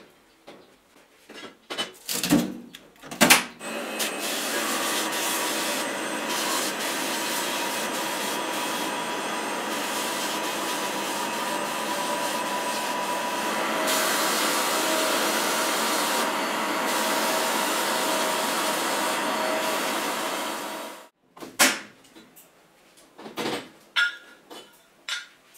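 Sandblasting cabinet's air blast gun hissing steadily as abrasive is blasted onto drill housing parts, starting about four seconds in and cutting off sharply near the end. Before and after it, knocks of the metal parts and the gun being handled on the cabinet's metal grate.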